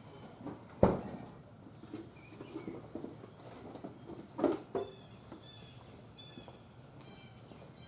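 BLC2 ball powder burning slowly with a small open flame. There is a sharp snap about a second in and a softer pop about four and a half seconds in. In the second half a bird calls in a run of short repeated notes.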